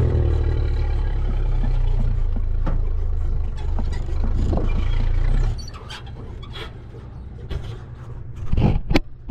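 Toyota Troop Carrier's engine running with a steady low rumble, just after being topped up with oil; it drops away about five and a half seconds in. A few sharp knocks follow near the end.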